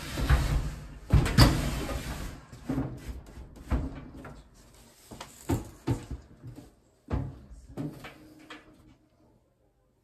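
A clothes dryer being shoved back against the wall: a run of irregular knocks, bumps and scraping as the cabinet slides and jostles into place, loudest in the first couple of seconds and dying away about nine seconds in.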